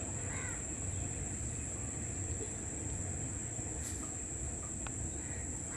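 Distant low rumble of a freight train hauled by two ALCO WDG3A diesel locomotives, under a steady high-pitched insect drone. A crow caws faintly near the start and again near the end.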